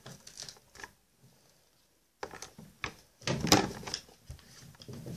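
Close handling noise from a plastic doll being worked by hand: soft rustles and light clicks, then a quiet pause, then a busier run of knocks and rustles that is loudest about three and a half seconds in.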